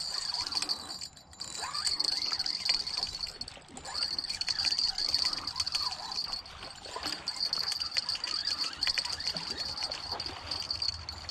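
Splashing water and irregular clattering, knocking handling noises as a blue catfish is landed, over a steady high-pitched hiss.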